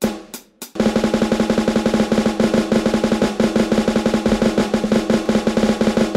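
Sampled snare drum from the Aeroband Pocketdrum app, triggered by swinging its Bluetooth drumsticks in the air: a few single hits, then a fast, even snare roll from about a second in.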